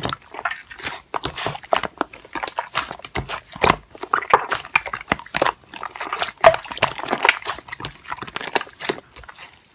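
Slime being squeezed and worked by hand, giving a run of irregular sticky clicks and crackling pops.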